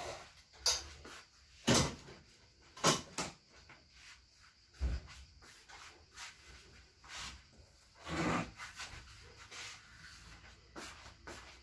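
Objects being handled and shifted about: irregular knocks and bumps, a dull thump about five seconds in, and a longer scrape about eight seconds in.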